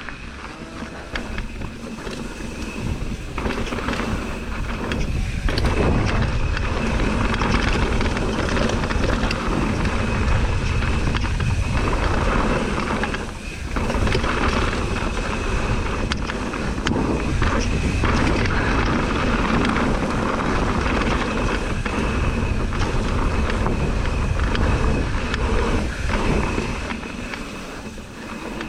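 Mountain bike riding downhill at speed: wind rushing over the microphone along with tyres rumbling on the trail and the bike rattling. The noise builds over the first few seconds and drops briefly about 13 seconds in.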